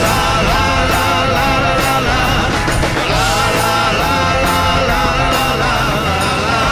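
Rock music with a steady drum beat and a sung vocal.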